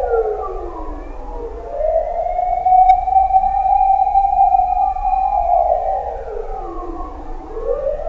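Fire truck siren wailing. Its pitch sinks low about a second in, climbs back and holds high, then sinks again near the end and starts to climb once more.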